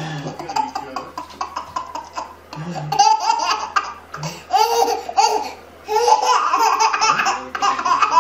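Baby laughing in several fits of giggles, with a short break about two-thirds of the way through.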